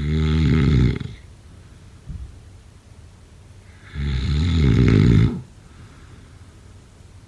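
A person snoring: two loud snores about four seconds apart, each lasting just over a second, with a faint short sound between them.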